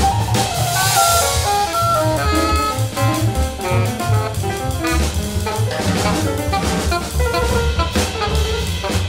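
Free-jazz quartet of alto saxophone, piano, bass and drum kit playing a busy passage of short notes over bass and drums, with a cymbal crash about a second in.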